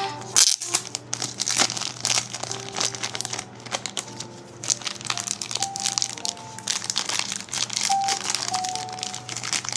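Plastic card sleeves and wrappers crinkling and crackling as trading cards are handled, over soft background music.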